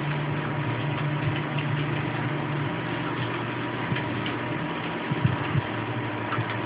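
Steady background machine hum with several light clicks of a computer keyboard and mouse in use.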